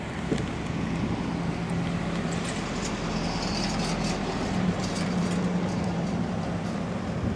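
Cars driving past on the road, a steady engine hum with tyre noise.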